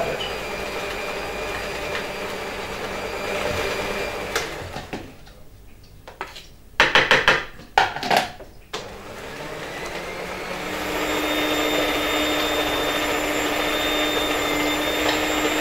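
Electric stand mixer with beaters running at low speed on butter and sugar. It goes quiet after about four seconds, and a few loud knocks of a spoon against a bowl follow. Near the last third the mixer runs again, louder, with a steady hum, as the speed is turned up.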